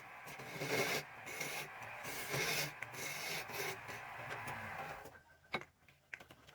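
Abrasive rubbing or scraping on wood in repeated strokes, roughly two a second, stopping about five seconds in; a few light clicks follow.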